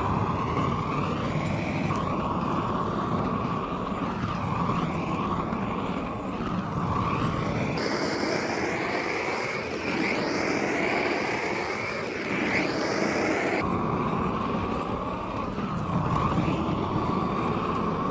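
Propane roofing torch (Lincoln Electric Inferno) burning steadily, a loud even rush of flame noise, as it heat-shrinks a plastic boat cover.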